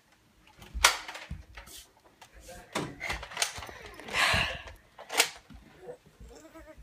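A few sharp knocks and clicks, one about a second in and another near five seconds, with a longer rustling hiss around four seconds in: bumps and handling noise in a small room.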